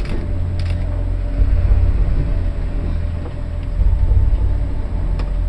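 Ship in a storm at sea: a heavy, uneven low rumble of wind and sea, with steady hums and occasional creaks and knocks from the vessel's structure.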